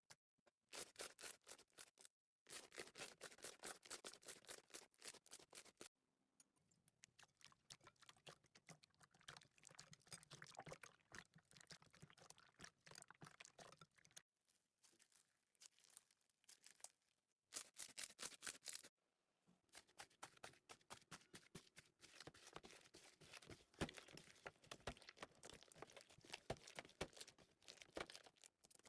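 Slime being squeezed and worked by hand: quiet, dense runs of small clicks and crackles, broken by several abrupt short silent gaps.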